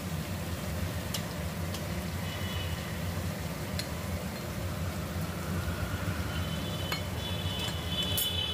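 Onion masala frying in oil in an aluminium kadai: a steady low rumble with a light hiss, and a few faint clinks.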